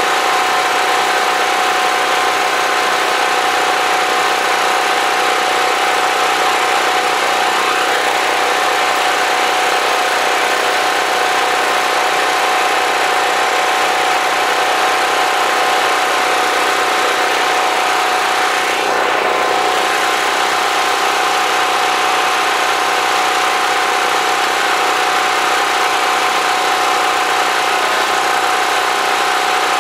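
Portable generator engine running steadily: a loud, even drone with a constant hum.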